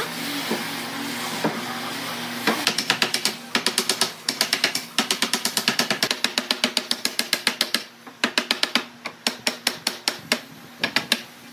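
Rapid runs of sharp knocks, several a second with short pauses between runs: a hammer tapping on a wooden block to drive the slatted seat into a wooden chair frame.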